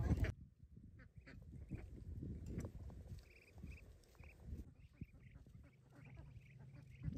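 Ducks quacking faintly, a string of short calls repeating every half second to a second, over a low rumble and scattered knocks.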